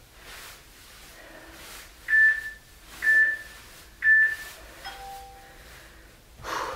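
Interval timer beeping: three short high beeps about a second apart, then a lower two-note tone, counting down the end of an exercise interval.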